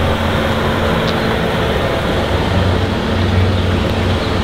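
An engine running steadily, a low droning hum under a dense rushing noise, swelling slightly about halfway through.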